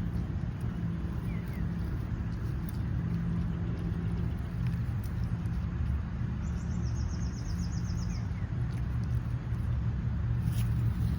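Outdoor ambience: a steady low rumble of distant road traffic. About six seconds in, a rapid, high-pitched trill of even pulses lasts a second or two.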